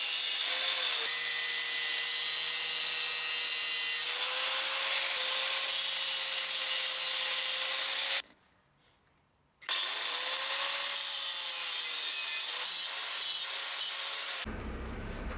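An electric power tool cutting a steel bar into short pieces: a harsh cutting noise over a steady motor whine. It stops about eight seconds in, and a second and a half later the motor spins up again, rising in pitch, for the next cut.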